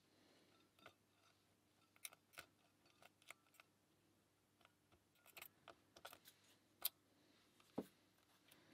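Faint, irregular small clicks of a lock pick and tension wrench working the pins of a pin-tumbler lock, with one sharper click about seven seconds in and a duller knock just after. The picker suspects a serrated pin.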